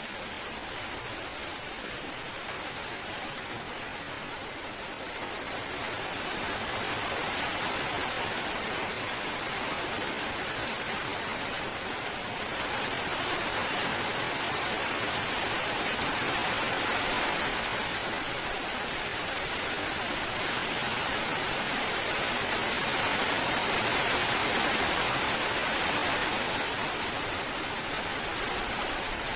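Steady heavy rain, a dense even hiss of falling drops that swells a little louder about six seconds in.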